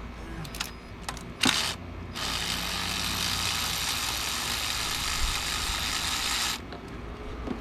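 Hiss of an aerosol spray can: a short blast about a second and a half in, then a steady spray of about four seconds that starts and stops sharply. A few light clicks of handling sound around it.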